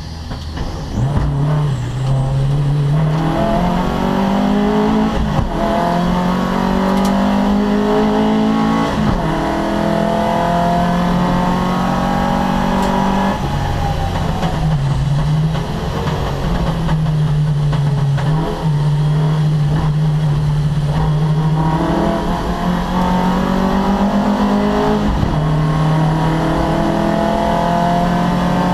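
Opel Kadett C race car engine running hard at full throttle, its pitch climbing steadily and then dropping at each gear change, with a few deeper dips where it comes off the throttle.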